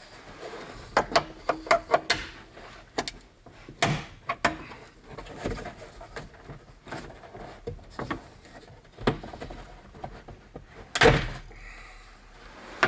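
Plastic interior pillar trim being pried and handled with a trim removal tool: an irregular run of clicks and knocks, the loudest about eleven seconds in.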